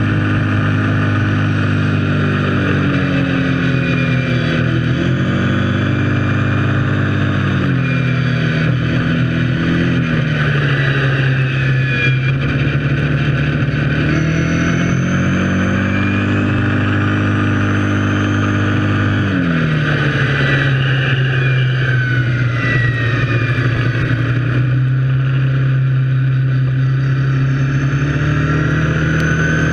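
Kawasaki KFX 700 quad's V-twin engine running under way, its pitch rising and falling smoothly as the throttle is opened and eased, dropping sharply twice, over a steady hiss of wind and road noise.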